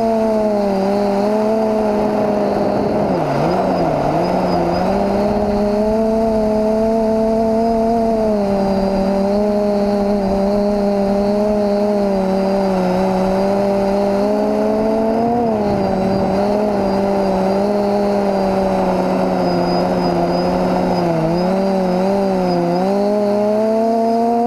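Quadcopter's SunnySky 2216 brushless motors spinning 9x5 props in flight, a steady whining hum over radio hiss. Its pitch dips twice, about three seconds in and again near the end, and rises briefly around the middle as the throttle changes.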